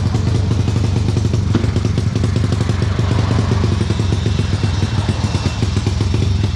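Motorcycle engine idling steadily, with an even, rapid firing pulse.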